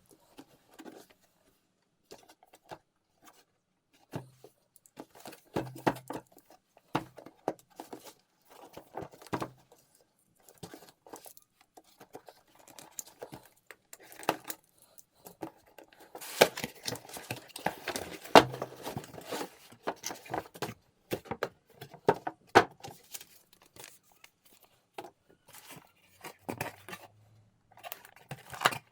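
Packaging being unwrapped and handled: plastic and cardboard crinkling and tearing, with scattered light clicks and knocks. It is busiest for a few seconds a little past the middle.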